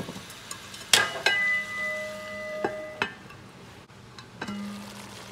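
Metal lid set on a cooking pot: a clang about a second in that rings for a second and a half, then two lighter knocks as it is settled. Faint sizzling from the pot underneath.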